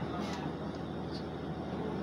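Steady running noise of a Class 150 diesel multiple unit, heard from inside the carriage: an even engine drone with a haze of travel noise as the train moves along.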